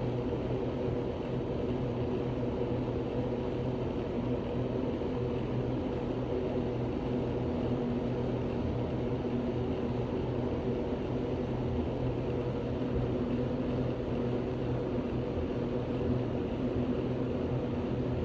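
A steady, unchanging machine-like hum with a few held low tones.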